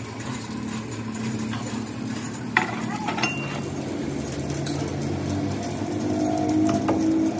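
A machine running with a steady hum, its pitch rising slightly and growing louder near the end, with a few short metallic clinks.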